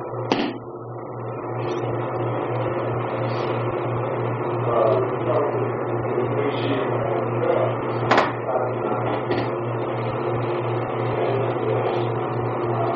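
Steady low hum and hiss, with two sharp thumps on the training mat about a third of a second in and about eight seconds in, from aikido partners striking the mat as they fall and pin.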